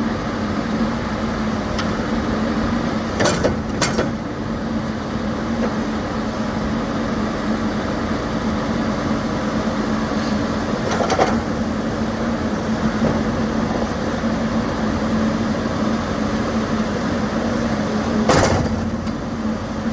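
2013 Case 590 Super N loader backhoe's diesel engine running steadily while the machine is being operated, with a few sharp metallic knocks, the loudest near the end.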